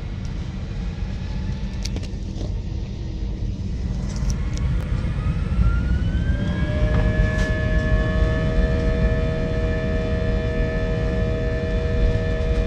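Airbus A319 heard from inside the cabin on the takeoff roll: a heavy low rumble with the engines spooling up. About halfway through, a whine rises in pitch and then holds steady as the engines settle at takeoff power and the noise grows louder.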